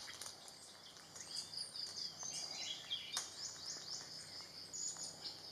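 Forest ambience: a steady high-pitched insect drone, with many quick high chirps and whistles from small birds that are busiest in the middle.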